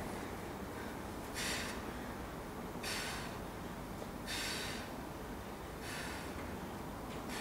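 A man breathing out hard with each rep of a heavy dumbbell floor press: four sharp breaths about a second and a half apart.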